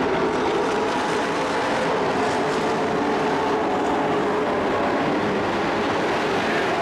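Engines of a field of dirt-track race trucks running at racing speed around the track. They make a steady, dense engine sound with pitch lines that shift as the trucks accelerate and lift.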